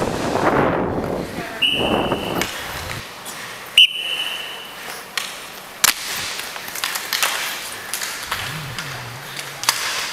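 Two short blasts of a referee's whistle, each about a second long, the second coming just after a sharp crack of stick or puck. Inline skate wheels and sticks clatter on the rink floor around them.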